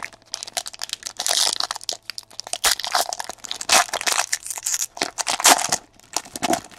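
Foil trading-card pack wrapper being torn open and crinkled by hand: a dense, irregular run of crackling and tearing.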